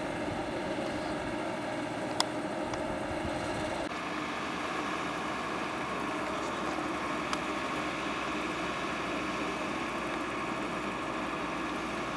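Vehicle engine idling steadily, with a single sharp click about two seconds in. The engine sound changes abruptly about four seconds in.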